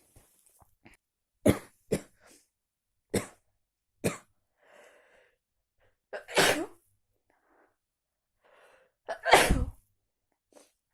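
A run of sneezes: four short, sharp ones in the first few seconds, then two longer, louder sneezes, the last one the loudest, with faint breaths between them.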